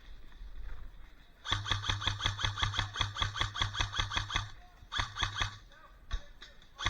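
Airsoft electric gun (AEG) firing on full auto, its gearbox clattering at about a dozen shots a second over a steady motor hum: a long burst of about three seconds starting about a second and a half in, a short burst about five seconds in, and another starting at the very end.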